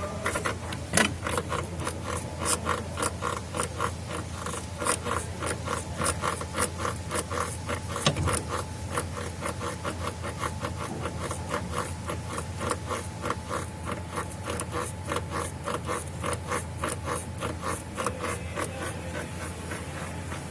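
Mazda CX-9 driving with rapid, irregular knocking and rattling, several clicks a second over a steady low rumble, with a few louder knocks: the noise of a damaged gearbox mounting.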